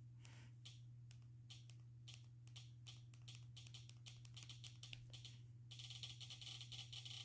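Faint clicking of a streaming-TV remote's navigation ring, pressed over and over to scroll the channel guide, turning into rapid, near-continuous clicking about six seconds in, over a steady low hum.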